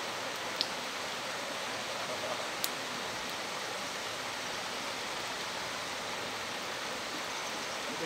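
Steady rushing hiss of a waterfall's falling water, even and unbroken, with two faint brief ticks in the first few seconds.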